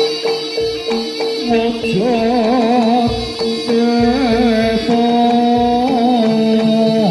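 Javanese jaranan dance music: drum strokes under a held tone, with a wavering, ornamented melody line coming in about two seconds in.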